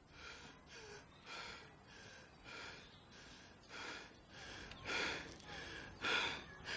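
A person breathing in short, breathy gasps, about one or two a second, growing stronger toward the end.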